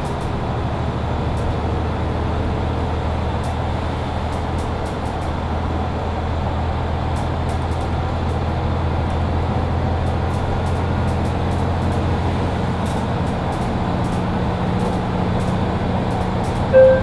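Mercedes-Benz Citaro C2 Hybrid city bus driving, its diesel engine and road noise making a steady low hum. Near the end a short, loud two-tone chime sounds, falling from the first note to the second.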